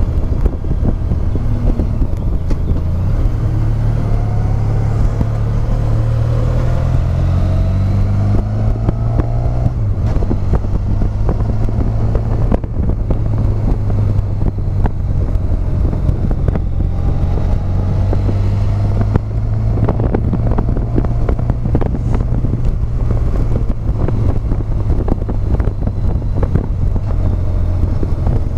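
Motorcycle engine running under way, heard from on the bike with wind noise on the microphone; its pitch climbs twice as the rider accelerates, then settles.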